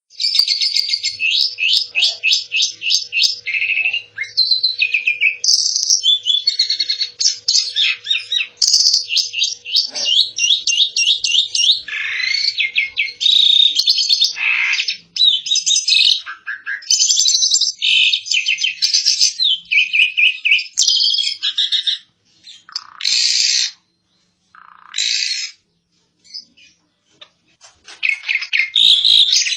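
Asian pied starling (jalak suren) singing loudly: fast runs of quickly repeated chattering notes and whistles. The phrases come almost without a break for the first twenty seconds or so, then as short separate bursts with gaps between them.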